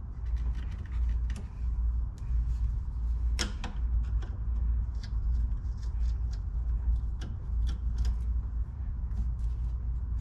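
Small clicks and taps of screws and car interior trim parts being worked loose and handled, with one sharper knock about three and a half seconds in, over a steady low hum.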